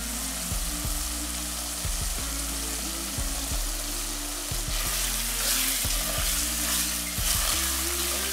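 Onion-tomato masala sizzling as it fries in a pot, with a spoon stirring through it near the end. Soft background music with a slow, stepping melody plays underneath.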